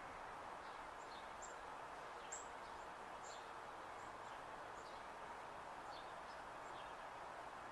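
Faint outdoor ambience: a steady background hiss with small birds chirping now and then, short high chirps several times a second.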